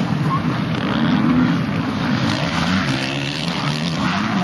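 Motocross dirt bike engines revving as the bikes race past, the pitch rising and falling with the throttle.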